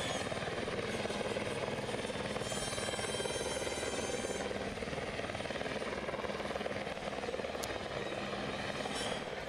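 Helicopter rotor chopping steadily in a rapid, even beat, easing off slightly near the end.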